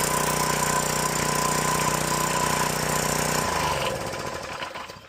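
Gas pressure washer's small engine running steadily, then shut off about three and a half seconds in and spinning down to a stop.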